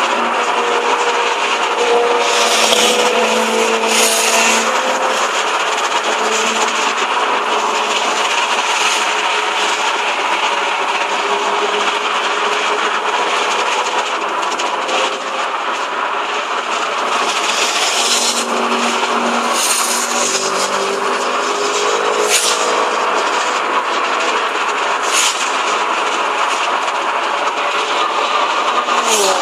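Steady road and engine noise heard inside a moving car's cabin at highway speed, with the engine's hum slowly rising and falling and a few brief rushes of noise.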